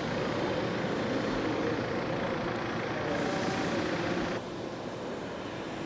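Hot-air balloon's propane burner firing, a steady rushing noise that drops to a quieter, duller sound about four seconds in.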